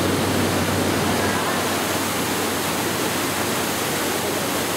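Steady rush of fast, turbulent whitewater in a swollen river.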